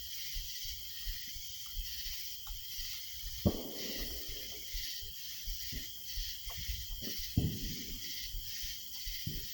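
A few scattered dull knocks and clunks from work on the engine, over a steady, faintly pulsing high hiss.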